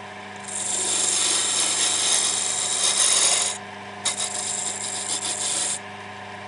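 Wood lathe motor humming steadily while a turning tool cuts the spinning wood blank in two long passes, the first starting about half a second in and the second around four seconds in.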